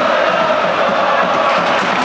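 Football crowd chanting and singing together in the stadium stands, a steady mass of many voices holding a sung line.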